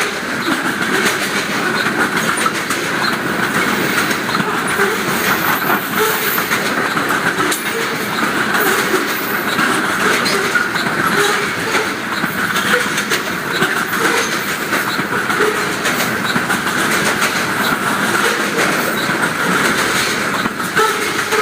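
Covered hopper cars of a Canadian Pacific unit grain train rolling steadily past, with a continuous rumble and irregular clicking of wheels over the rail joints.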